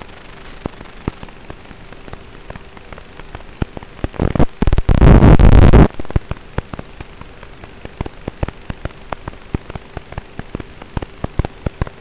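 Hissy, crackling audio from a fixed-wing FPV plane's analog video link, with sharp pops scattered throughout and a faint steady hum underneath. About four seconds in, a very loud distorted rush lasts a second and a half, then cuts off.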